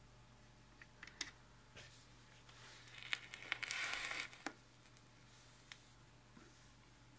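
Handling noise at a turntable as the stylus is cued onto a spinning record: scattered small clicks, then about two seconds of louder rustling and scratching with a few sharp clicks around the middle, over a steady low hum.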